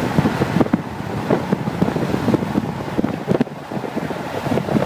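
Wind buffeting the microphone: a rough rushing noise with irregular gusts, strongest in the low range.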